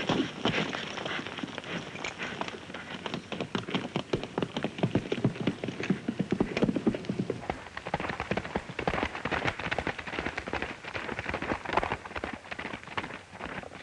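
A horse galloping on a dirt trail: a rapid, continuous clatter of hoofbeats.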